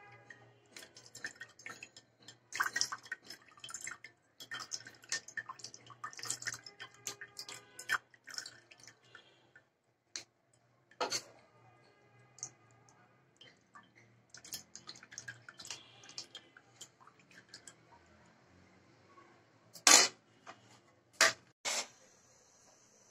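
A metal spoon scraping and pressing a thick milky mixture through a plastic strainer, with liquid dripping onto a plate below: busy irregular scrapes and clicks for the first half, then only occasional ones, and a few sharp knocks near the end.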